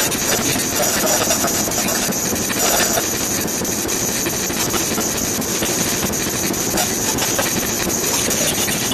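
Steady rushing noise with a faint, constant high whine over it.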